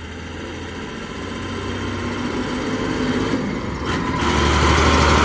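Case Maxxum 5130 tractor's diesel engine running as it drives toward the microphone, growing steadily louder as it approaches and louder again about four seconds in.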